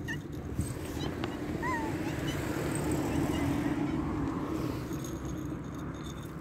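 Cats giving a couple of short mews, one right at the start and one just under two seconds in, over a steady low background hum.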